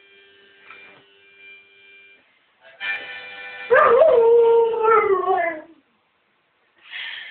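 Harmonica playing held chords, with a dog howling along about halfway through: one loud howl of about two seconds that jumps up in pitch and then slides slowly down. A short breathy harmonica chord follows near the end.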